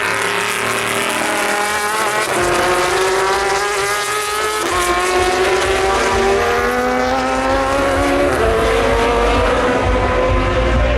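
Endurance racing car's engine accelerating hard through the gears. Its note climbs steadily and drops abruptly at three upshifts, about two, five and eight seconds in.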